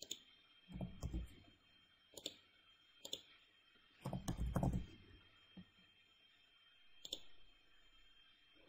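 Computer mouse clicking: about five sharp single clicks, spaced roughly a second or more apart. Two short, low, muffled noises come about a second in and again around four to five seconds in.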